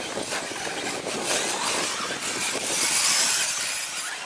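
Radio-controlled 1/10-scale electric short course race trucks running on a dirt track: the high whine of their motors over the hiss of tyres on dirt, swelling to its loudest about three seconds in as trucks pass close.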